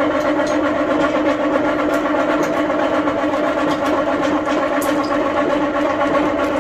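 Electric hoist motor running with a steady, even hum as it lifts a snowbike of about 130 kg on a crane scale.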